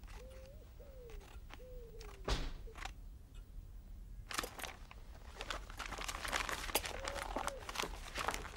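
Scissors snipping through a magazine page, then paper rustling and crinkling as the cut-out clipping is handled; the crinkling is loudest from about halfway through. A pigeon coos softly in the background at the start and again near the end.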